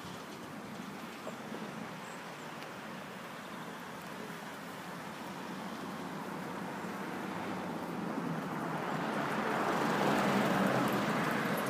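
Road traffic: a steady hiss of tyre noise on the road, swelling over several seconds as a vehicle comes up and passes, loudest about ten seconds in, then easing off.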